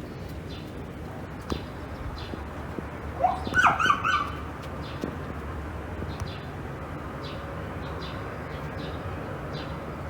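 A short, high animal call about three seconds in: a rising whine-like note followed by a few quick notes, over faint repeated high chirps.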